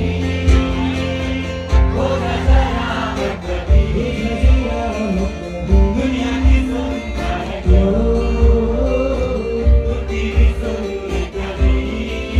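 Live band music through a PA system: a male singer's amplified vocal over instruments, with a steady thumping drum beat.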